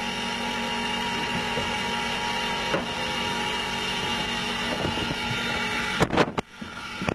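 Steady running noise inside the cab of steam locomotive No. 58, with one sharp knock about three seconds in. Near the end comes a cluster of loud clunks, and the steady noise drops away.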